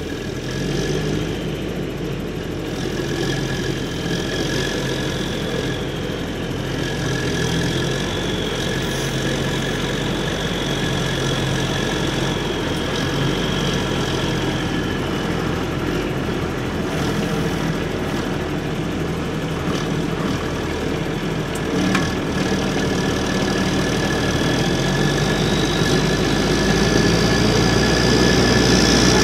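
Diesel engines of farm machinery, a tractor with a slurry tanker and a self-propelled slurry applicator, running steadily with a high whine over the low hum. The sound grows louder toward the end, and there is a single sharp click about two-thirds of the way through.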